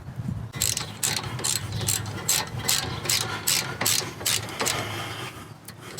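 Socket ratchet clicking in a steady rhythm of about four clicks a second as the front wheel nuts are run on, ending in a short rasp near the end.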